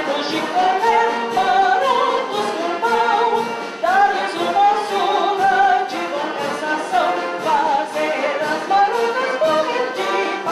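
A woman singing a hymn into a hand-held microphone, holding notes with vibrato, over a steady beat.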